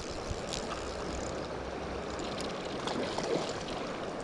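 Fast river current running, a steady rushing wash, with a few faint scattered clicks and knocks.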